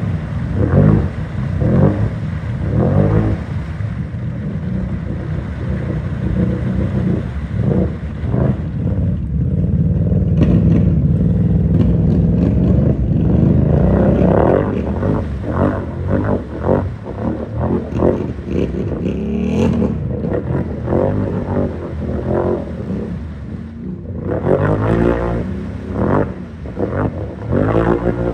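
Can-Am Renegade XMR 1000 ATV engine revving hard in deep mud and water, the revs rising and falling again and again, with water and mud splashing around the churning tires.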